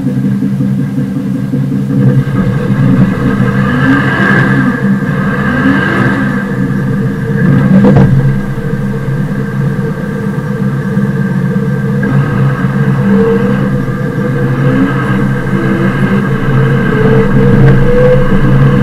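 John Deere 7520 tractor's six-cylinder diesel engine running steadily and loudly close up, with a fainter whine above it whose pitch wanders.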